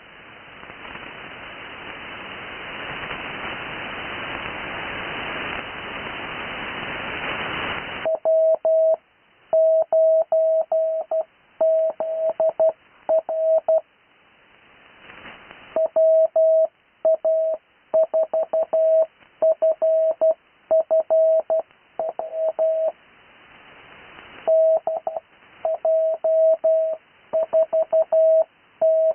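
Hiss of radio static through a receiver, growing steadily louder for about eight seconds during the pause before sending begins, then cutting off suddenly. Morse code (CW) follows: a single steady beep keyed on and off in dots and dashes, an amateur radio station sending callsign practice.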